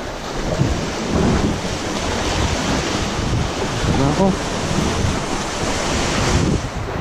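Sea surf surging and washing over shoreline rocks around a wader's feet, with strong wind buffeting the microphone. A brief pitched sound cuts through just after four seconds.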